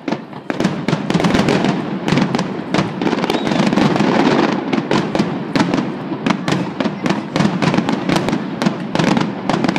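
Aerial firework shells bursting in a fireworks finale: a dense, rapid barrage of overlapping bangs that jumps up about half a second in and keeps going.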